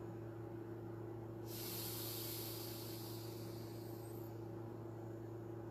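A woman taking a slow, deep yoga breath: one long airy hiss of breath lasting about three seconds, starting about a second and a half in, over a steady low hum.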